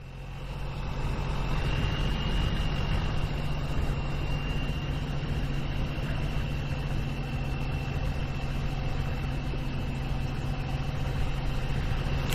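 Honda ST1300's V4 engine running steadily at cruising speed, heard from the motorcycle itself with road and wind noise, and a thin steady high whine above it. It fades in over the first second.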